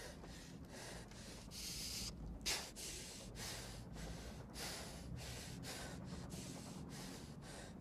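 A frightened young man breathing fast and hard, about two breaths a second, with one sharper gasp about two and a half seconds in.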